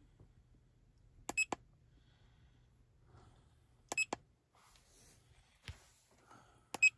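Foxwell AutoMaster Pro OBD2 scan tool beeping as its keys are pressed to erase trouble codes: three short double beeps, about a second in, near the middle and near the end, the last the loudest, with a faint click between the second and third.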